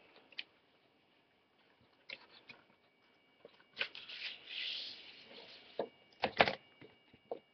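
Paper envelope being handled and opened by hand: scattered rustles and crackles of paper, a longer sliding rustle about four seconds in as a sheet is drawn out, and a few louder crackles near the end.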